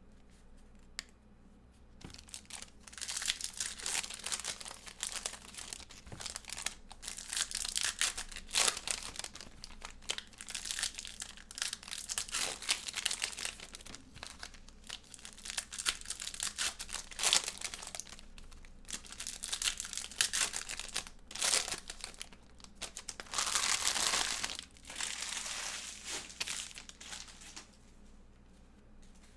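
Foil trading-card pack wrappers being torn open and crinkled while cards are handled and shuffled: a long run of crackling rustle, loudest in a stretch about three-quarters through and dying down near the end.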